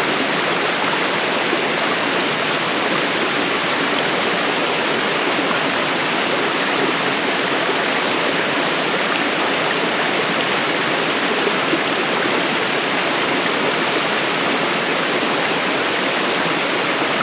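Waterfall: a steady, even rush of falling water, with no breaks or changes.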